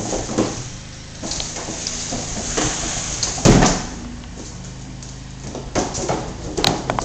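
A cardboard box being pushed and dragged across a hardwood floor by a Border Collie puppy: scraping with irregular knocks, the loudest thump about halfway through and a quick run of knocks near the end.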